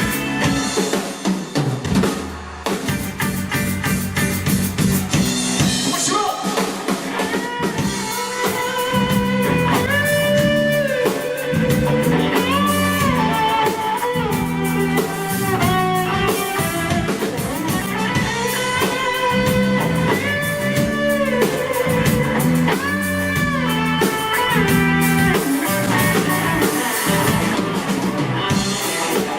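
Live band playing an instrumental break: drums and bass keep the groove while a lead line, most like an electric guitar, plays a solo with notes bent up and held.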